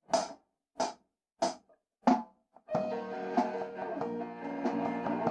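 Four evenly spaced count-in clicks, about two-thirds of a second apart. Then, a little over two and a half seconds in, a live rock band comes in together with drums and guitars.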